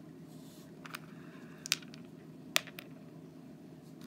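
Three short, sharp clicks of hard-shelled M&M candies being set down and nudged by hand on a ridged rubber mat, the last the loudest, over a steady low background hum.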